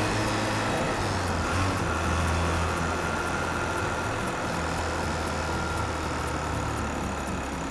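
Mazda RX-8's freshly rebuilt 13B two-rotor rotary engine running under load as the car drives, heard from a microphone in the engine bay. It pulls steadily, then the revs ease off a little about three seconds in.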